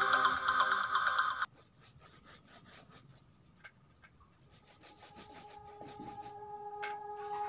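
Electronic music that cuts off about a second and a half in. Then faint scratchy rubbing of a bristle brush scrubbing acrylic paint onto canvas, while held music tones fade back in over the last few seconds.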